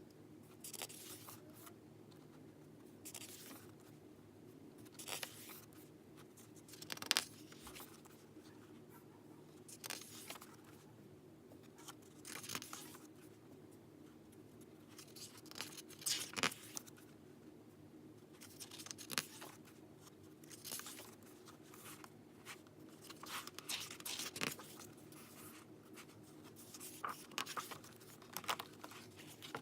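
Merchandise packaging being handled, rustled and torn open in short bursts every second or two, over a faint steady low hum.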